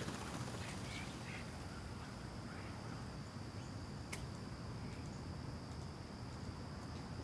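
Outdoor residential ambience: a steady low background rumble and a constant thin high whine, with a few short bird calls in the first few seconds and again near five seconds, and one sharp click about four seconds in.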